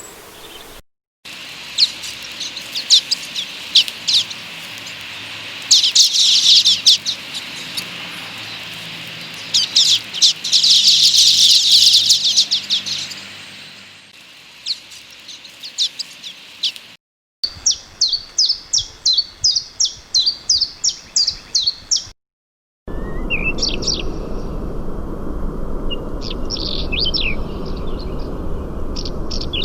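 Recorded songbird songs from three different clips in succession: first bursts of rapid, rattling high notes in phrases a few seconds apart, then after a short break a quick run of short repeated notes at about three a second, then after another break scattered song phrases over a steady background hiss.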